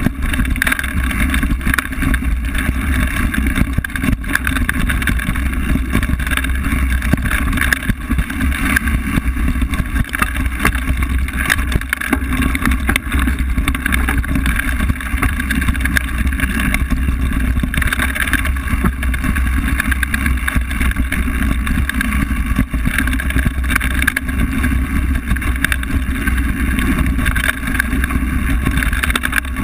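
A mountain bike ridden fast down a dirt forest trail, heard from a camera mounted on the rider or bike: a steady rushing rumble of wind and tyres on dirt, with constant small knocks and rattles from the trail's bumps.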